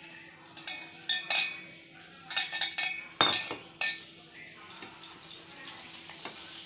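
Metal kitchen utensils clinking and knocking against cookware: a run of sharp clinks from about half a second to four seconds in, the loudest just after three seconds, then a few fainter taps.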